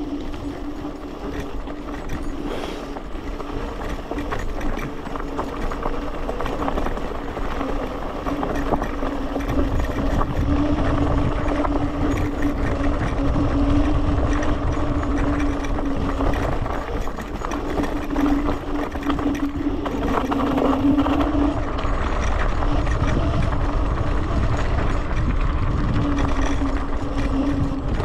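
Electric scooter being ridden: a steady motor whine holding nearly one pitch, over rumbling wind and tyre noise that grows louder about nine seconds in as the ride picks up.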